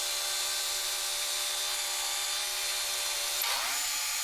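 Band sawmill running steadily, its blade cutting through a pine log with a continuous hiss over the motor's hum; about three and a half seconds in, the pitch shifts.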